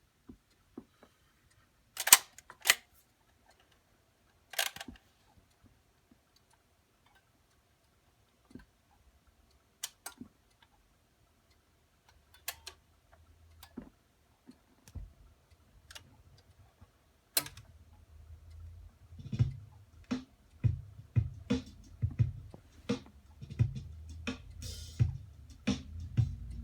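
Miracord 50H record changer's mechanism clicking and clunking as it cycles, with sharp clunks about two and five seconds in. About two thirds of the way through, music starts playing from the record, with a steady deep beat.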